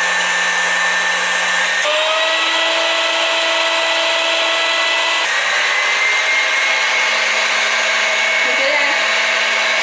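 Philips electric hand mixer running with a loud, shrill motor whine. It is switched up a speed about two seconds in and again about five seconds in, and the whine steps up in pitch each time.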